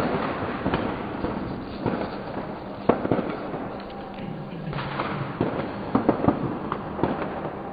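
New Year fireworks and firecrackers going off all around: many irregular bangs and cracks over constant crackling, one sharp crack about three seconds in and a quick run of bangs near six seconds.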